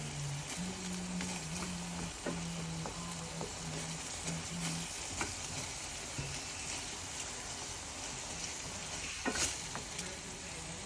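Ground beef sizzling in a frying pan as it browns with taco seasoning, a steady hiss broken by short scrapes and taps of a utensil stirring it. The loudest scrape comes about nine seconds in.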